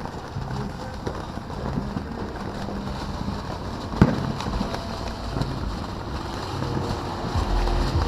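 Low rumbling wind noise on the microphone, with one sharp pop about four seconds in.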